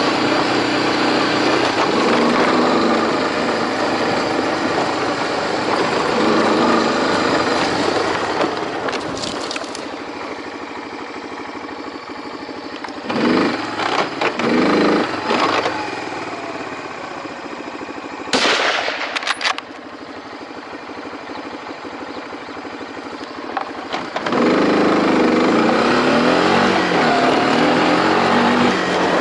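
Motorbike engine running steadily, dropping lower through the middle and rising again about five seconds from the end. Several brief loud noises break in around the middle.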